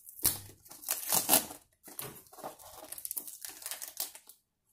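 Packing tape on a cardboard box being scratched at and peeled with fingernails: irregular scratching and crinkling, becoming a run of quick small scrapes in the second half, then stopping shortly before the end.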